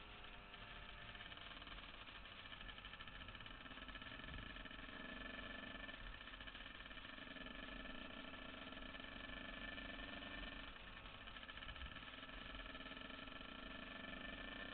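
2000 Yamaha YZ125's single-cylinder two-stroke engine running steadily as the bike cruises along. Its note shifts briefly about two-thirds of the way through.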